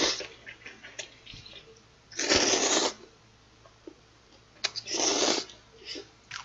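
Slurping cold spicy bibim noodles: two long slurps, about two and five seconds in, with small wet mouth clicks between them.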